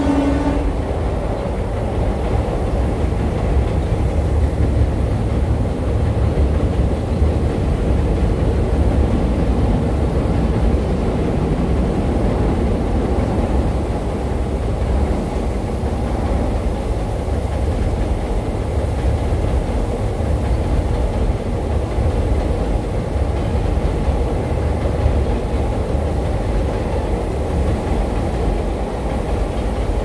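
Rumble of a passenger train's coaches rolling steadily across a viaduct, blended with the steady rush of waterfall water falling close to the microphone.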